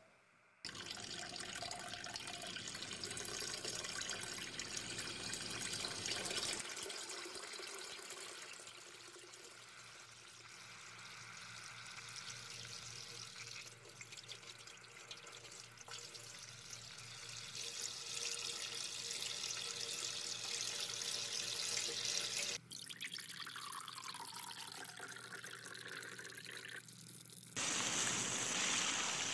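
A run of household sounds. First a front-loading washing machine's drum turns with water sloshing. Then an old tube radio is tuned, with a tone that falls in pitch. Near the end a hand shower head sprays water in a steady hiss.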